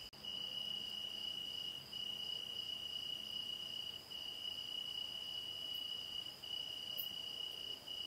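A cricket trilling steadily, one high shrill note broken by brief gaps about every two seconds.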